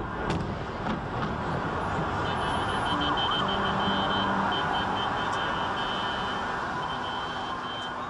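Car alarm tones repeating on and off, starting about two seconds in, over loud steady city noise.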